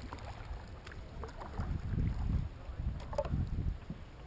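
Double-bladed kayak paddle strokes dipping and splashing in the water, with a few sharp knocks and wind rumbling on the microphone.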